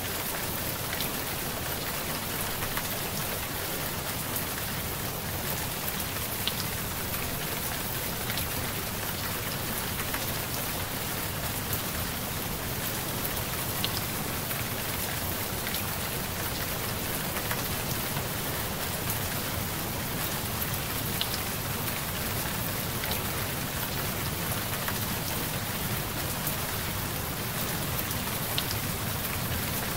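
Steady rain falling: an even hiss of rain with a few faint drop ticks here and there.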